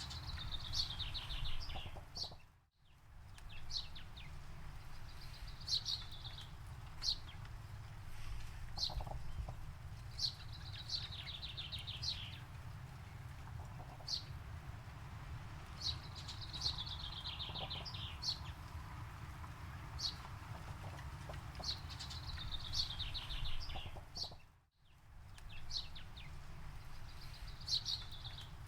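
Birdsong: a songbird repeats a quick descending series of high notes every few seconds, with short single chirps between, over a steady low rumble. The sound drops out briefly twice.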